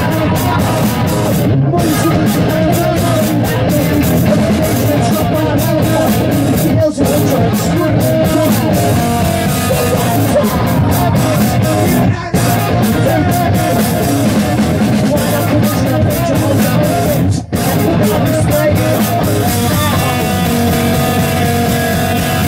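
Live rock band playing loud: electric guitars and a drum kit, with a singer's vocal. The whole band cuts out for a split second three times, about five seconds apart.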